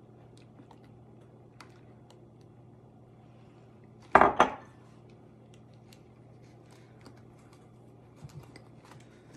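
Glass kitchenware and a metal spoon clinking: one loud double clatter about four seconds in, with a few light scattered ticks around it.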